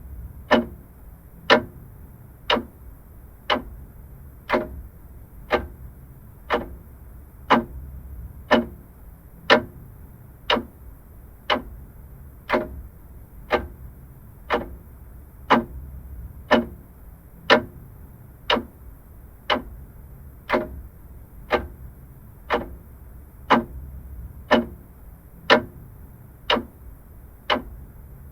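Vintage clock ticking steadily, about one sharp tick a second.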